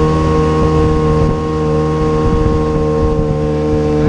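Boat motor running at a steady speed while the boat is under way, a constant engine drone with a fixed pitch.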